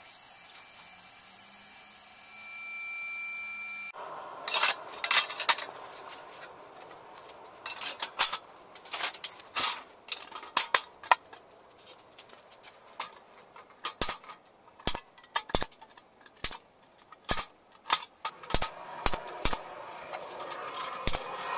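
Irregular sharp metal clanks, taps and knocks as aluminium diamond-plate sheets are handled and set into a welded steel frame on a steel welding table, after a few seconds of steady hum at the start.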